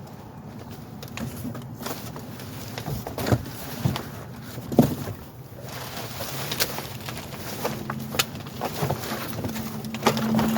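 Rummaging through a dumpster: scattered knocks, clatters and rustles of bags and boxes being moved, the sharpest about 3, 4 and 5 seconds in and again near the end, over a steady low hum.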